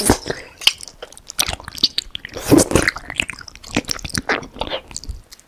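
Close-miked biting and chewing of a gummy bear: one sharp bite right at the start, then irregular wet mouth clicks and smacks as the gummy is chewed with the mouth closed.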